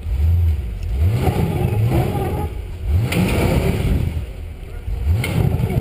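Engine of a modified off-road 4x4 truck revving in repeated short bursts, about four rising revs, as it climbs a rock section.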